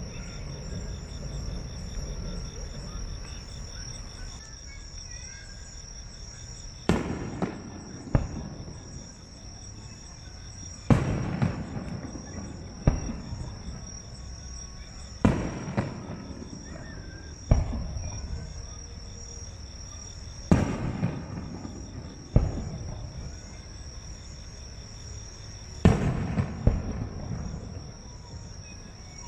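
Aerial firework shells bursting one at a time: about nine sharp booms, two to four seconds apart, starting about seven seconds in, each trailing off in a rolling echo. Underneath is a steady high-pitched insect trill.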